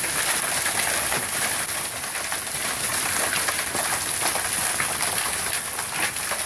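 Hailstorm: hailstones falling steadily, a dense stream of small ticks and clicks over an even hiss.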